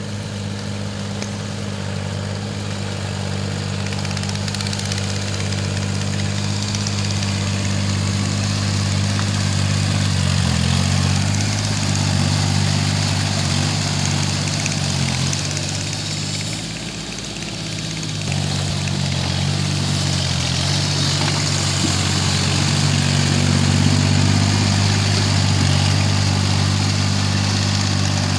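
Kubota L4018 tractor's four-cylinder diesel engine running steadily while it pulls a tiller through wet mud, growing louder as it comes closer. The engine note wavers briefly partway through and dips for a moment about two-thirds of the way in.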